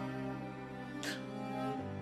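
Slow, sad background music of bowed strings, a cello holding long low notes, moving to a new chord near the end. A short breathy sound cuts through about halfway.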